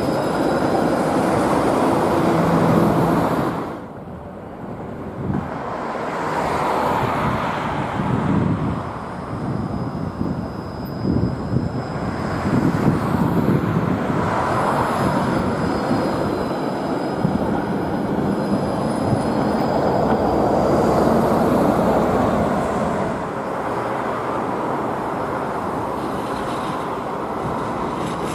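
Five-section low-floor city trams running past on street track: a steady rumble of wheels on rail with faint high-pitched wheel squeal at times. The sound drops off abruptly about four seconds in, then picks up again as the next tram passes.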